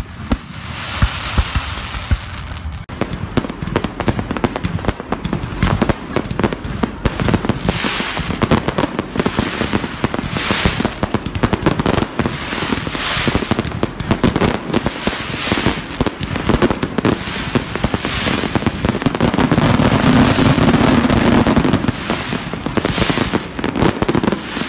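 Fireworks display: a continuous barrage of rapid bangs and crackling, at its loudest about twenty seconds in.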